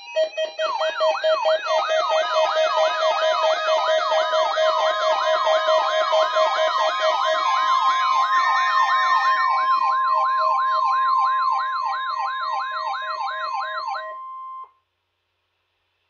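Several weather radios sounding their alert alarms at once for a Required Weekly Test: a siren-like sweep, rising and falling about two or three times a second, over a fast-pulsing beep, with a steady tone joining about four seconds in. The alarms cut off suddenly near the end.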